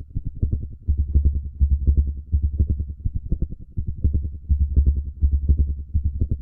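Recorded heartbeat: low, muffled thumps repeating rapidly in a regular pattern.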